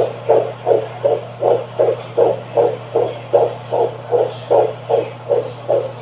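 Fetal heartbeat through a Doppler ultrasound monitor: rapid, even whooshing pulses, about two and a half to three beats a second, over a steady low hum.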